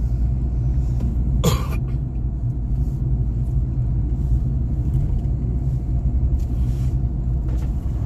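Car interior road noise while driving: a steady low engine and tyre rumble, with a brief sharp sound about a second and a half in.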